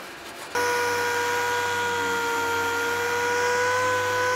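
Random orbital sander with a dust-extraction hose running on a new car bonnet, preparing it for wet-on-wet filler. It starts about half a second in and runs as a steady whine over a low hum and hiss.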